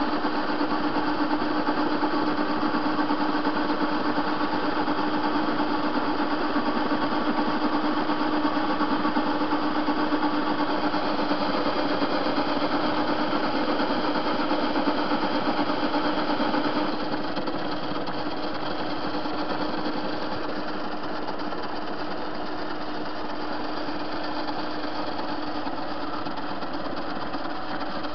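TV-16 metal lathe running, its three-phase motor fed through a capacitor, with a steady hum and whine while turning a round blank. A little past halfway through, the sound drops slightly and becomes quieter.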